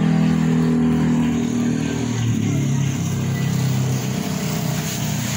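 A motor running steadily, its pitch dropping about two seconds in.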